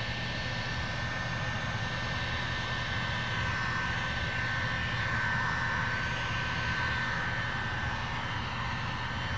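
Heat gun running steadily, its fan blowing with a whining tone over a low hum, drying water off wet-sanded clear coat. The whine shifts a little in pitch around the middle.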